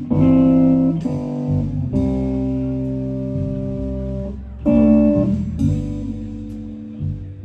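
A live blues band playing a slow song. An electric guitar strikes chords about once a second and lets each ring out and fade, over bass guitar and drums.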